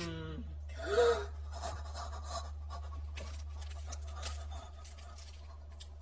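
Scratchy rustling and crinkling of a chocolate bar's wrapper being handled, over a steady low hum. A short vocal exclamation comes about a second in.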